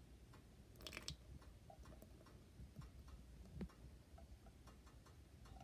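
Near silence: room tone with a few faint clicks and a short rustle about a second in.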